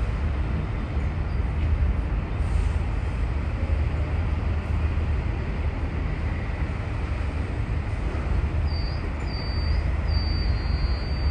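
Steady low rumble of vehicle noise. Near the end a series of short, thin, high beeps repeats several times.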